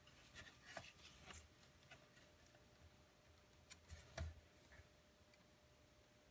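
Faint clicks and light scraping from laptop parts being handled, in two short clusters, the sharpest click about four seconds in.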